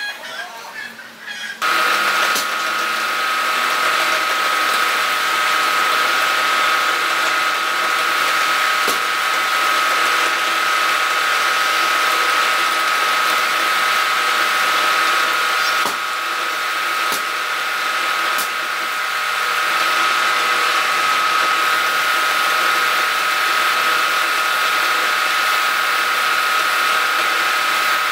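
Wood lathe motor running with a steady high whine, starting abruptly just under two seconds in, a few faint clicks over it.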